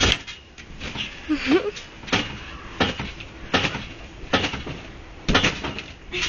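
A person bouncing on a backyard trampoline: a landing on the mat and springs repeats about every three quarters of a second.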